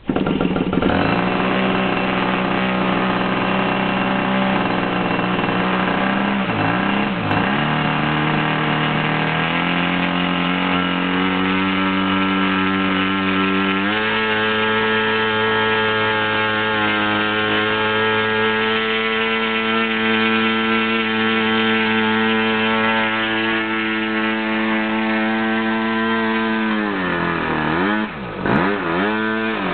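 O.S. MAX BX-1 1.08 cu in two-stroke glow engine on 10% nitro fuel, turning a 16x10 wooden propeller, catching and running. It starts at low speed with a couple of brief dips in pitch, steps up in speed twice, then holds a steady high-speed note. Near the end the revs drop, dip sharply and pick up again.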